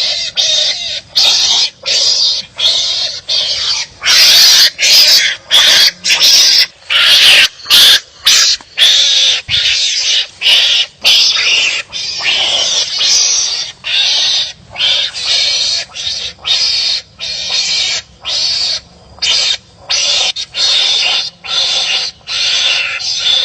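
Harsh, rasping animal calls of animals fighting each other, repeated one after another with short gaps, roughly one to two a second and loudest about four to nine seconds in.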